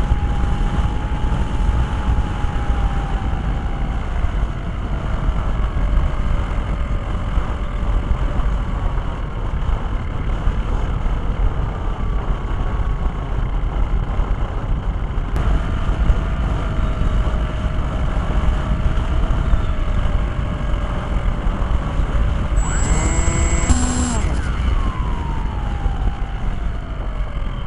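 Wind rushing over the onboard camera microphone of an electric RC plane in flight, with the motor and propeller whine gliding slowly down in pitch. The whine jumps up about halfway through and falls away near the end.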